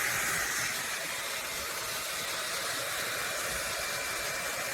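T3 AireBrush hot-air dryer brush running, a steady rush of blown air with a faint whine from the fan motor.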